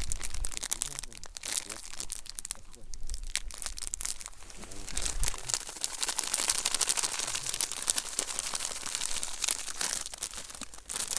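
Strong wind buffeting the microphone: uneven low rumbling gusts under a continuous crackling rustle.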